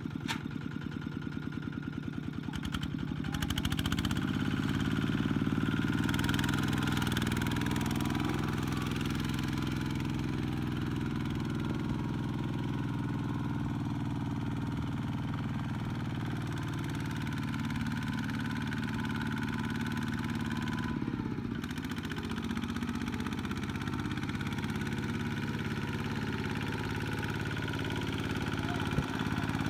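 Two-wheel walking tractor's single-cylinder diesel engine chugging slowly, then opened up about four seconds in and running hard and steady while hauling a heavy trailer of rice sacks out of mud, easing briefly past the middle.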